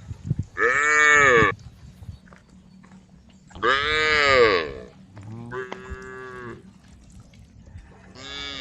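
Cows mooing: four drawn-out calls of about a second each, each rising then falling in pitch. The first two are the loudest, and the last starts near the end.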